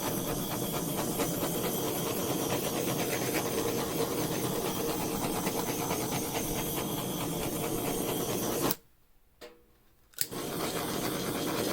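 Handheld torch flame hissing steadily with a fast flutter as it is passed over wet acrylic pour paint to pop air bubbles. It cuts off about nine seconds in and starts again a second and a half later.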